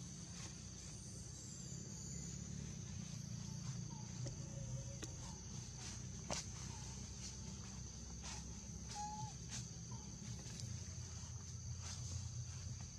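Insects chirring steadily at a high pitch over a low background rumble, with scattered sharp clicks and a few brief faint chirps, the clearest about nine seconds in.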